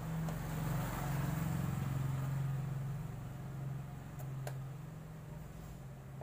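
A low mechanical hum swells over the first couple of seconds and slowly fades, with two light clicks a little after four seconds in.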